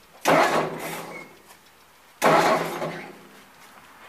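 The starter on a 1955 Ford 800 tractor's 172 cu in four-cylinder overhead-valve gas engine is bumped twice. Each bump is a short burst of cranking that starts suddenly and dies away over about a second. The engine is being inched round to bring the ignition points' rubbing block up onto a distributor cam lobe.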